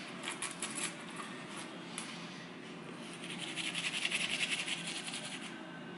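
Manual toothbrush scrubbing teeth: a rapid, scratchy brushing that grows denser and louder about three seconds in.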